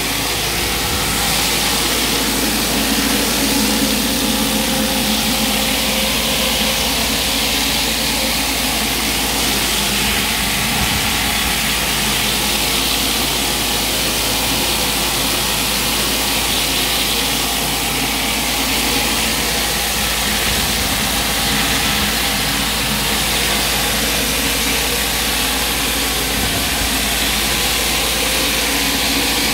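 A BE 20-inch Whirl-A-Way flat surface cleaner hissing steadily as its spinning jets blast wet block paving, under the steady running of the pressure washer.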